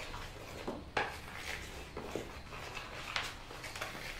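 A hand mixing dry flour in a plastic mixing bowl: a soft rustle of flour, with irregular light knocks and scrapes against the bowl.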